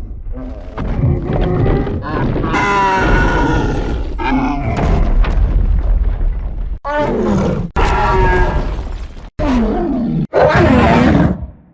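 A string of short vocal sound-effect clips spliced together: grunts and cries with sliding pitch, each cut off abruptly before the next begins.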